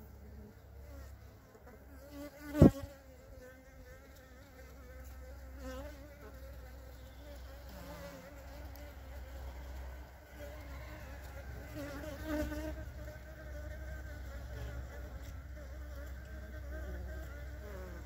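A colony of honeybees on an open comb buzzing in a steady, slightly wavering hum. A single sharp knock about two and a half seconds in is the loudest sound.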